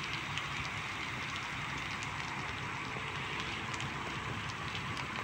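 Steady, even outdoor background hiss, with a few faint scattered ticks.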